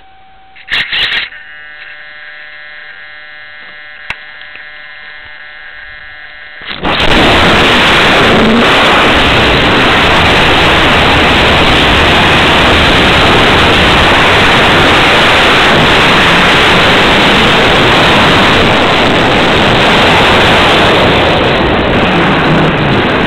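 Radio-controlled model airplane's motor heard through the plane's onboard camera: after a short knock about a second in, it runs with a steady whine of several tones, then about seven seconds in jumps suddenly to full power for the climb-out, a loud, even rush of motor and airflow over the microphone that holds on.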